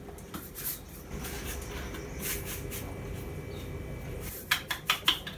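An egg tapped sharply three times against the rim of a small frying pan to crack it, over a steady low hum.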